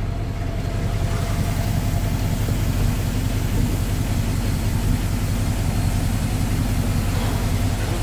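Vehicle engine running with a steady low drone, heard from inside the cab.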